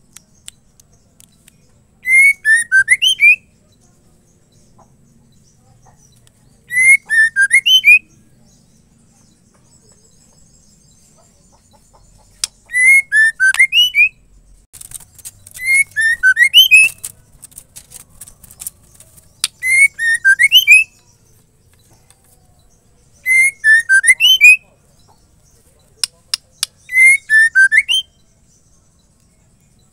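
Female white-rumped shama calling for a male: seven short whistled phrases, each about a second long and made of a few quick falling and rising notes, repeated every few seconds. A run of sharp clicks comes between phrases around the middle.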